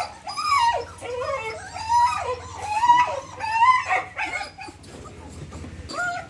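Kanni puppies whining and yipping: a run of high, rising-and-falling whines for about four seconds, dying away near the end.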